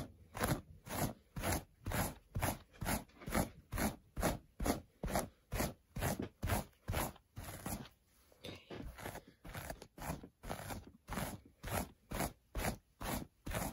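Hairbrush raking through a doll's hair in quick repeated strokes, about two to three a second, with a short break about eight seconds in.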